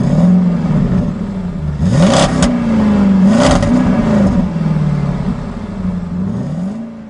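Engine revving up and down several times, with two rushing whooshes in the middle, fading out near the end.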